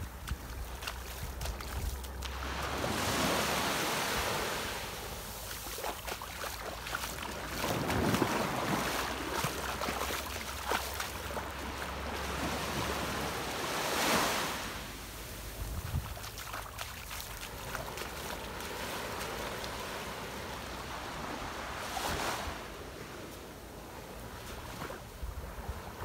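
Small waves breaking and washing up a sandy shore, the wash swelling and fading every five or six seconds. Wind rumbles on the microphone underneath.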